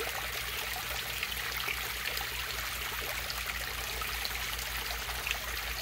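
Water from a pond fountain spraying and splashing steadily onto the surface of a koi pond, with a low hum underneath.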